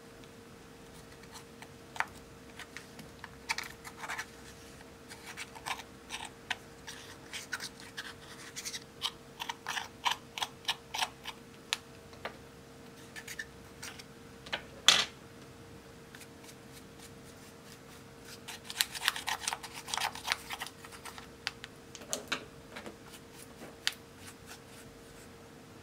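A small metal tool scraping and digging pressed blush powder out of a plastic makeup compact, making many short, irregular scratchy clicks, with one sharp knock about halfway through and a faint steady hum underneath.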